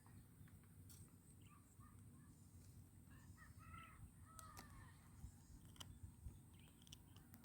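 Near silence, with a few faint bird calls around the middle and scattered faint ticks.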